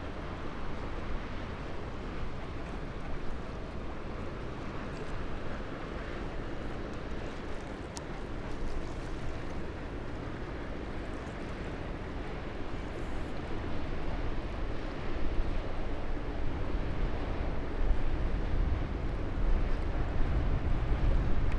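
Steady low rumble and water wash of the vehicle carrier GLOVIS SKY passing close by, with wind buffeting the microphone. The low gusts grow stronger over the last few seconds.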